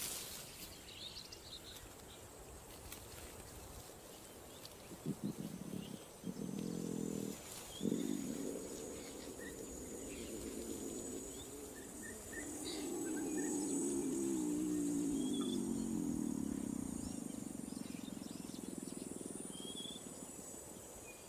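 A lion's low moaning: a cluster of short grunts about five seconds in, then a long, wavering moan that fades near the end. Crickets and scattered bird chirps are faint behind it.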